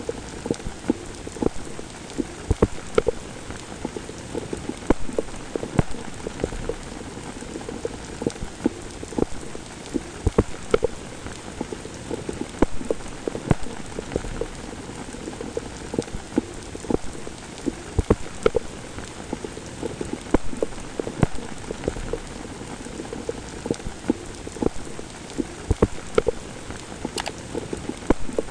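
Rain falling steadily, with many close, sharp drops striking a surface several times a second.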